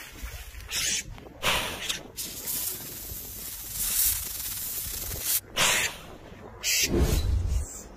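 Cape cobra hissing in a series of short, sharp bursts while reared with its hood spread, the defensive hiss of a cobra facing a mongoose. A low thump comes near the end.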